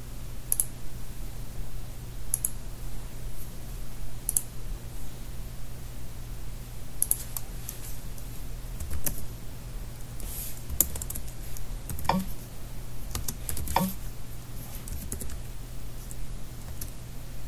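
Keystrokes on a computer keyboard, irregular and scattered, with a few harder strokes, over a steady low hum.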